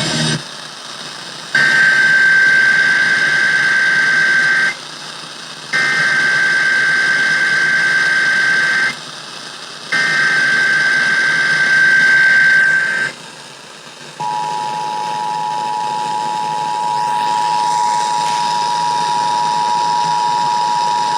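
Emergency Alert System required weekly test. Three bursts of SAME header data, each a warbling squeal about three seconds long with a short gap between them, are followed after a brief pause by the steady two-tone EAS attention signal.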